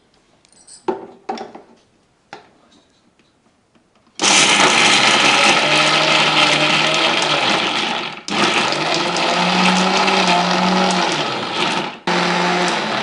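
Indian mixer grinder (mixie) with a small steel jar grinding fried peanuts, green chillies, tamarind and garlic to a paste. It is run in pulses: a long run starting about four seconds in, a brief stop, a second long run, then a short burst near the end. Before it come a few light knocks as the jar is handled and set on the base.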